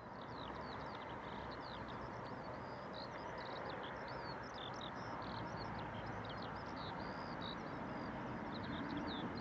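Many small birds chirping in quick, short calls over a steady, even rumble.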